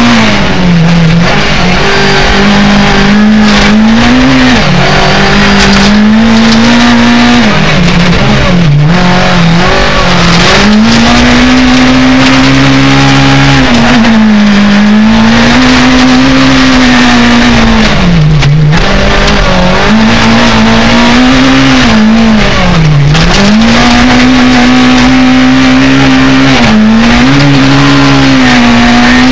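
Rally car engine at high revs, heard from inside the cabin on a gravel stage. The engine note holds high, then drops briefly and climbs again several times as the driver lifts off and changes gear, over a steady rush of tyre and gravel noise.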